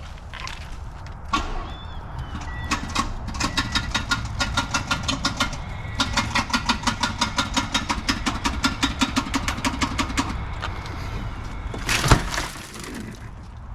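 Car engine cranking over on its starter motor in two long stretches, a fast even chugging of about five or six beats a second with a faint whine, without catching. About a second before the end comes one sharp loud bang.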